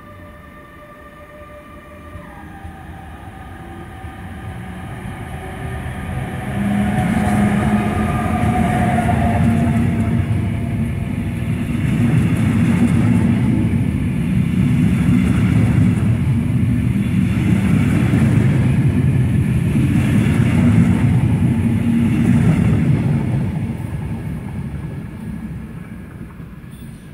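Electric locomotive-hauled regional train of double-deck coaches running past on the near track. It starts with a faint whine, swells into a loud rumble of wheels on rail with a clatter recurring every couple of seconds as the coaches go by, then fades away.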